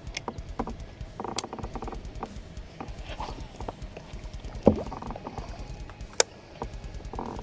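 Handling noises on a fishing kayak: scattered light knocks and clicks over a low rumble, with a sharper knock a little past halfway and a crisp click about two-thirds through.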